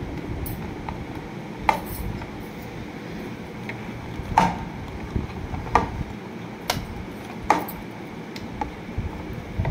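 A handful of sharp, light clicks and knocks of small hard objects being handled, spaced a second or so apart, over steady low background noise.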